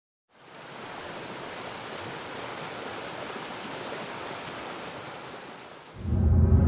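Steady rushing of a waterfall. About six seconds in, a deep bass boom swells up and becomes much louder.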